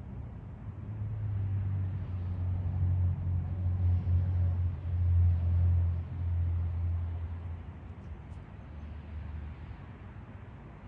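A passing vehicle's low engine rumble, building over a few seconds, loudest in the middle, then fading away by about eight seconds in.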